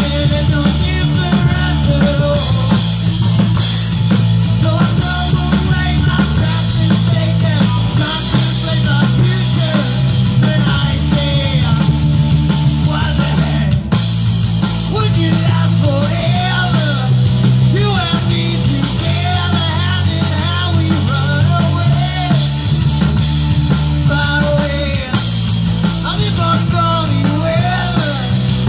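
Rock band playing live: electric guitars and drum kit, with a singer, loud and continuous.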